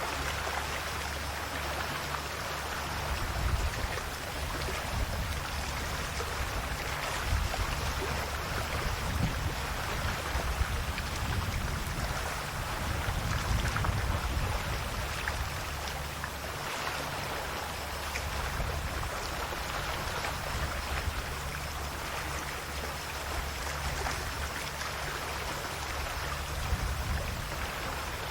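Calm Adriatic sea waves washing and lapping at the shore: a continuous wash of water that swells and eases gently every few seconds.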